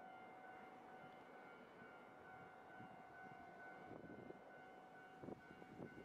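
Japanese railway level crossing warning bell ringing, a steady high tone with overtones, with a few short thumps near the end.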